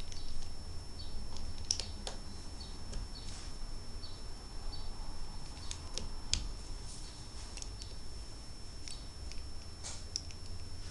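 Plastic Lego bricks being handled and snapped together: scattered light clicks and taps, a few at a time, over a steady low hum.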